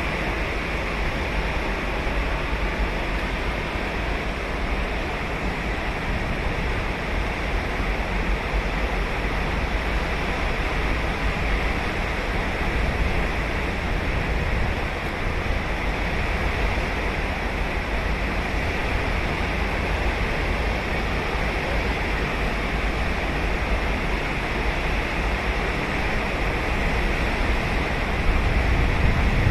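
Ocean surf breaking and washing ashore on a beach: a steady wash of waves with a deep rumble underneath, swelling a little near the end.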